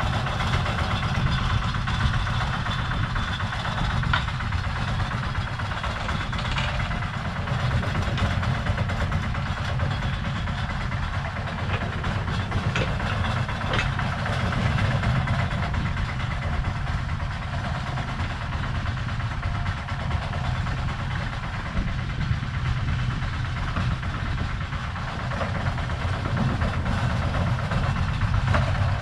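Lister SR1 single-cylinder diesel engine of a 1979 Smalley 5 mini digger running steadily as the digger works the trench, with a few short clanks.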